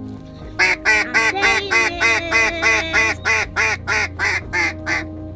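A run of about fifteen loud hen-mallard quacks, evenly spaced at roughly three a second and fading a little toward the end, in the pattern of a hail call.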